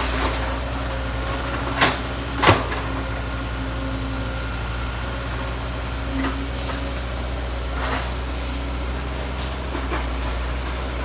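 Kobelco excavator's diesel engine running steadily, with two sharp metallic knocks about two seconds in and a few fainter knocks later.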